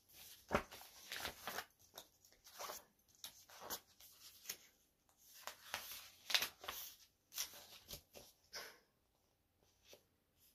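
Pages of a paperback picture book being turned and handled: a string of faint, short paper rustles and crinkles, dying away near the end.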